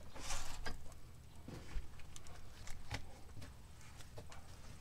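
A car's alloy wheel and tyre being pulled off the hub studs after the lug nuts are removed: a brief scraping rush near the start, then scattered light knocks as the wheel is handled.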